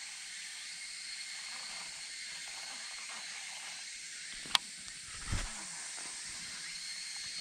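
Steady high insect chorus, with a sharp click about four and a half seconds in and a short low thud just after.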